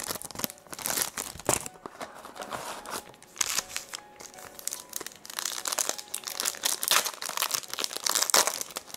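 Foil trading-card pack wrappers crinkling in irregular bursts as they are handled and torn open.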